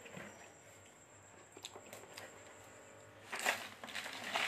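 Chewing and mouth sounds of someone eating a meal by hand, with a few faint small clicks. Louder chewing noise starts about three seconds in.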